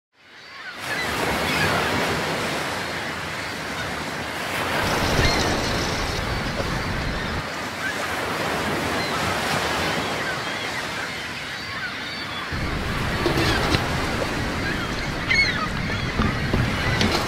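Sea surf breaking and washing onto a stony beach, fading in from silence at the start. A few short knocks sound near the end.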